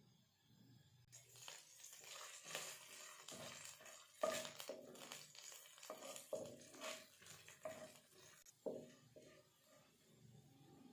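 A wooden spatula stirring and scraping chopped garlic in a little hot oil in a nonstick kadai. The faint, irregular scrapes and taps begin about a second in and stop near the end.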